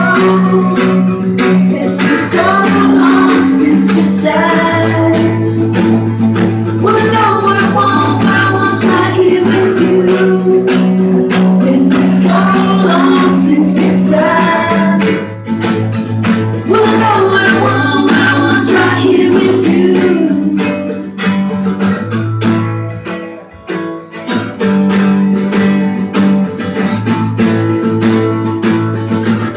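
A band playing live: strummed acoustic guitars with a sung melody over them and a light, steady percussion beat. The singing stops about twenty seconds in, the music briefly drops in level, then the guitars carry on.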